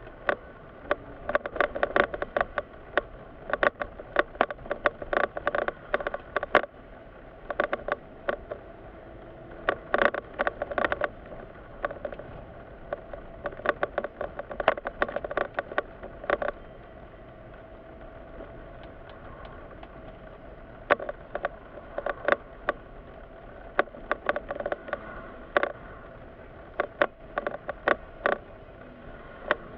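Inside a moving Mitsubishi car in slow city traffic: steady low road and engine noise, with frequent irregular rattling clicks that come in clusters.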